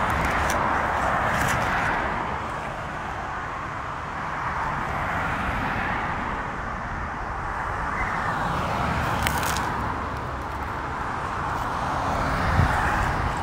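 Motorway traffic passing close by: a steady rush of tyre and engine noise that swells and eases as vehicles go past.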